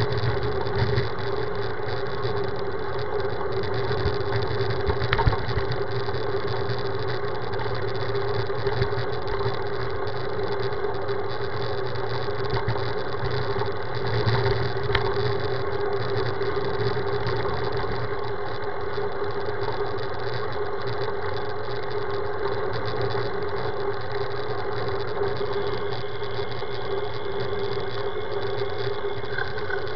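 Steady running noise of a road bike ride picked up by a bike-mounted camera: tyre and wind noise with a constant mid-pitched hum and a few light knocks from the road.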